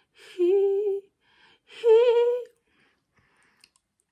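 A woman humming two long, wavering notes, one after the other about a second apart, followed by a few faint small clicks.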